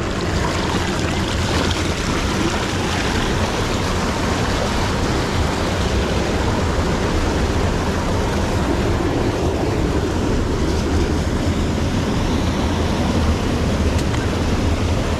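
Mountain stream rushing and splashing between granite boulders, a steady close-up rush of water.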